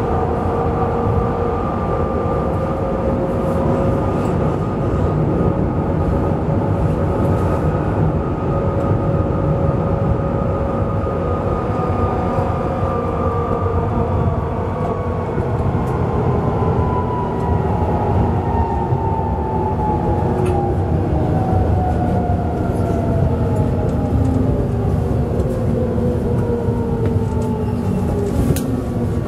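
Duewag B80D light-rail car running: a steady rumble of wheels on track under the whine of its traction drive. The whine holds its pitch for the first half, then falls steadily as the car slows.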